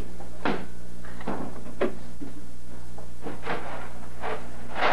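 About half a dozen short knocks and clunks of kitchen doors and objects being handled and set down, over a steady low electrical hum.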